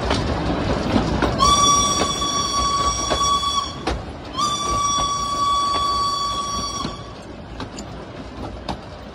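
Steam whistle of steam locomotive B 5112 sounding two long blasts of about two seconds each, with a short gap between them, a single steady tone. Under it the locomotive's running gear and wheels rumble on the rails, with occasional clicks at rail joints.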